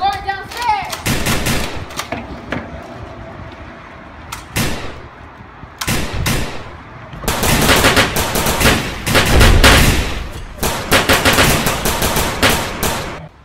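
Gunfire sound effects: scattered single shots, then from about halfway long rapid bursts of automatic fire with short breaks, stopping just before the end.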